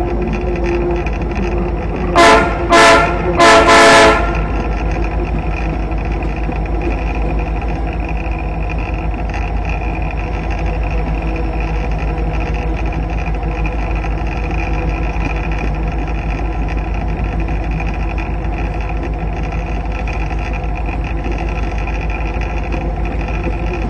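Alaska Railroad diesel locomotive running steadily along the track. About two seconds in, its horn sounds three times, two short blasts and a slightly longer third.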